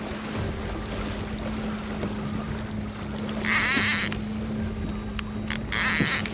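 Wind and water noise over a steady low hum. A fishing reel buzzes in two short spells with a wavering pitch, about three and a half seconds in and again near the end, as a hooked barracuda is fought from a kayak.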